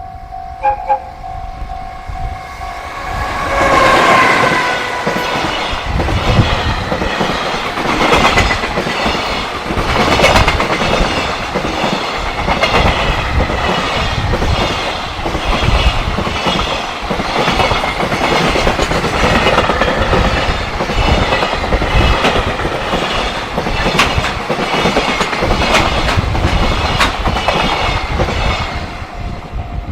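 Level crossing alarm ringing, then a JR Freight freight train arriving with a horn blast about 4 s in, its pitch dropping slightly as it passes. The train runs by for about 25 s, its wheels clacking over the rail joints in a steady rhythm, and the crossing alarm is heard again near the end.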